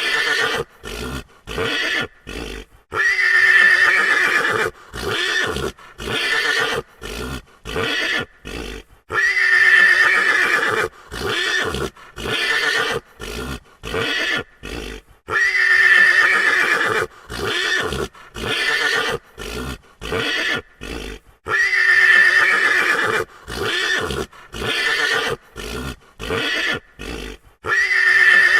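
A frightened horse neighing: a long, loud whinny about every six seconds, with a run of short, sharp sounds between each one. The same sequence repeats over and over like a loop.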